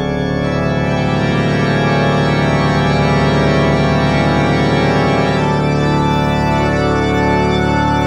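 Passau Cathedral's pipe organ, with its 17,774 pipes, playing a loud, sustained full chord held steady.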